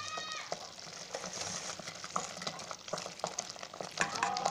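Thick kadhi (a gram-flour and yoghurt curry) bubbling at a boil in a metal pot. A ladle stirs and knocks against the pot with many small clicks as fried pakoras are dropped in.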